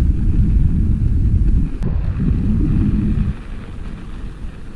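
Wind buffeting the microphone of a camera riding along on a moving bicycle: a heavy low rumble that drops away sharply about three seconds in.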